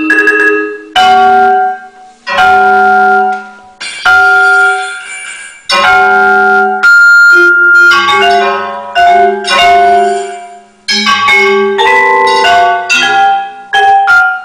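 Vibraphone played with mallets: ringing notes and chords in short phrases, several cut off abruptly, together with a pre-recorded tape part.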